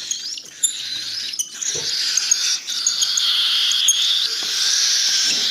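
Cockatiel chicks' begging calls, a continuous high-pitched rasping that grows louder about halfway through, the sound chicks make when they are hand-fed.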